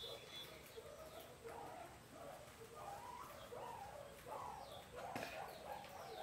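A herd of guinea pigs squeaking and chirping together, many short overlapping calls, some sweeping up and down. A sharp click about five seconds in.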